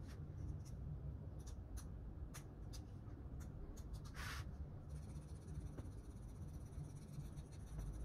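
Small metal file scraping along the edges of cast plaster of Paris figures in short, separate strokes, with one louder scrape about four seconds in.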